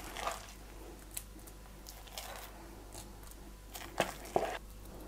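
Metal spoon scooping soft minced-meat filling out of a mixing bowl and setting it in dollops on rolled-out pasta dough: faint wet squishes, with two sharper clicks about four seconds in.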